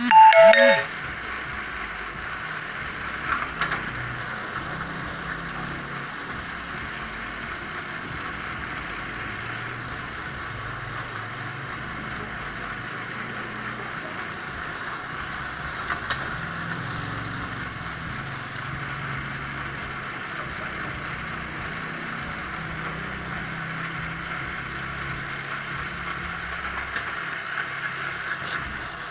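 Bamboo-thinning machine running steadily, a constant mechanical hum and whir, with a few sharp clicks or knocks along the way and a brief loud pitched squeal at the very start.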